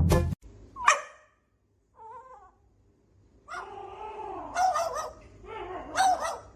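A dog vocalizing: a single sharp call about a second in, then a faint call, then a run of short pitched calls in the second half.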